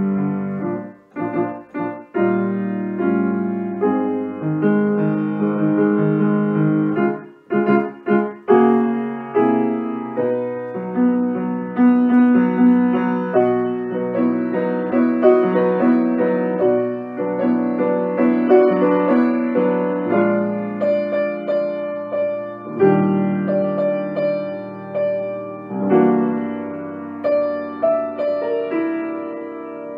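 Grand piano played solo, a flowing piece of sustained notes and chords, with two short breaks between phrases in the first eight seconds.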